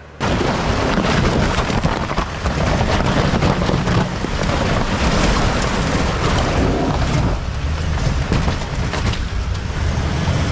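Loud driving noise of a vehicle, a low rumble with a dense crackle over it; it starts abruptly.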